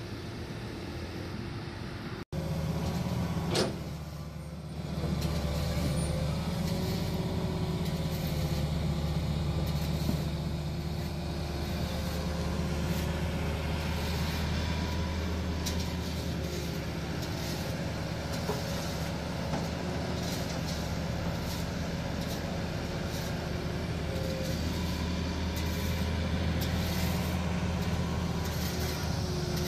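Hitachi Zaxis 200 excavator's diesel engine running steadily under digging load, with occasional short clanks. A sudden cut in the sound comes about two seconds in, followed shortly by a brief loud burst, the loudest moment.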